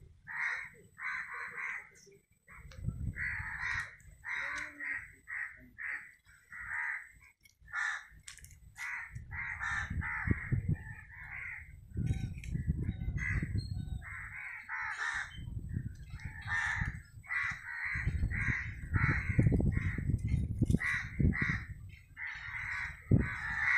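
Harsh bird calls repeated over and over, each call short and coarse, coming in quick runs with brief gaps. Stretches of low rumble lie under them at times.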